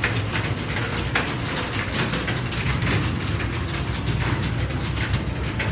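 Many computer keyboards being typed on at once, a dense, continuous clatter of key clicks over a steady low hum.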